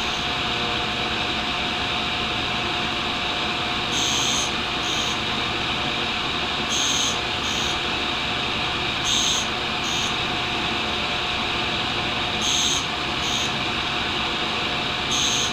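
Tool and cutter grinder running steadily while a carbide boring bar is ground on its wheel. Short, bright grinding hisses come in pairs about every two and a half to three seconds, five pairs in all.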